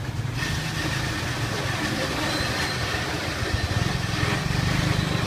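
An engine idling steadily, a low pulsing rumble, with a wash of background noise that rises about half a second in.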